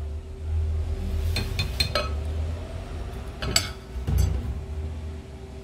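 A metal fork clinks against a ceramic bowl as squares of breaded noodles are dipped in beaten egg: a few light clinks in small clusters between about one and a half and four seconds in, over a steady low hum.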